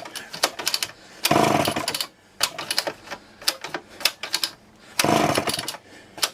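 A Homelite XL-12 two-stroke chainsaw being pull-started: two pulls on the recoil starter, each a rasping burst of under a second as the engine turns over without catching. Sharp clicks and rattles fall between the pulls.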